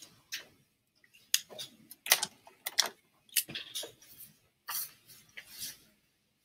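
Felt-tip pen writing on grid paper in a notebook: a run of short, quick scratching strokes with brief pauses between them.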